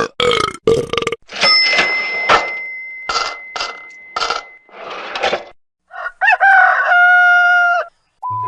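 A string of short, unrelated sound-effect clips played back to back: several quick noisy bursts, a steady beep of about three seconds running under some of them, then a held pitched sound about six seconds in, and a short beep at the end.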